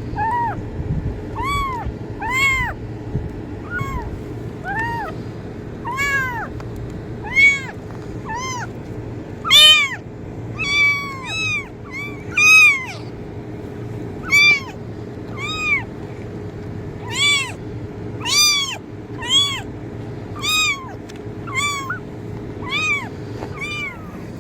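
A kitten meowing over and over, about one short high meow a second, each call rising then falling in pitch, some louder than others. A steady low hum runs underneath.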